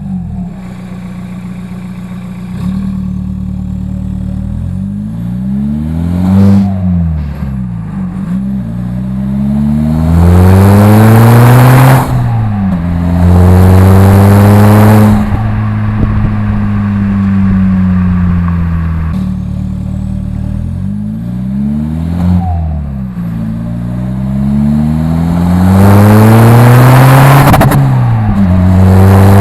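Seat Leon 1.9 TDI ARL four-cylinder diesel with a straight-pipe exhaust, revved over and over. The engine note climbs, is held high and loud for a few seconds at a time, and falls back toward idle between revs.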